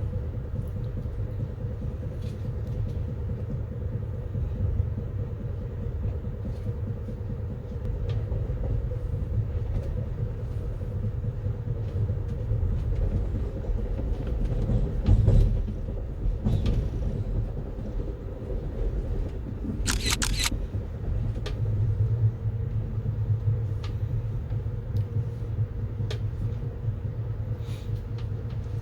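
Amtrak passenger train running along the rails: a steady low rumble and hum, with scattered clicks and knocks, a louder swell about halfway through and a short run of sharp knocks a little later.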